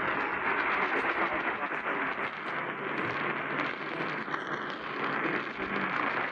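Steady hiss of radio static from a weakly received broadcast signal, cut off above the upper mid range.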